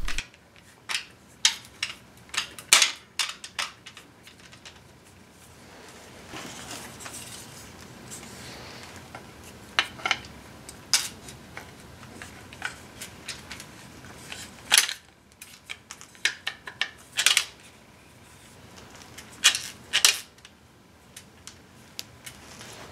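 Timing chain and plastic chain guides being handled and fitted onto a BMW M54 engine block: scattered sharp metallic clicks and clinks at irregular intervals, with light rustling between them.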